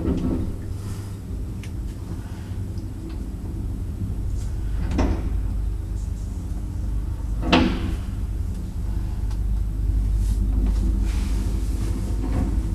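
A lift's steady low hum, with sharp door clunks: one at the start, one about five seconds in and the loudest about seven and a half seconds in, as the folding inner doors and swing landing door of the lift are worked on getting out.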